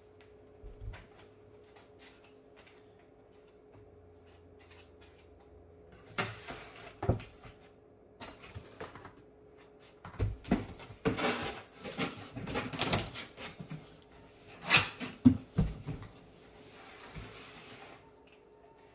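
Cardboard and a fabric cover rustling and scraping in bursts, with a few dull thumps, as a heavy boxed subwoofer is lifted out and set down on a wooden table.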